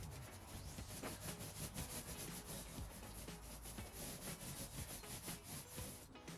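Paintbrush strokes applying white paint to a stable wall, a steady run of quick scratchy rubbing strokes.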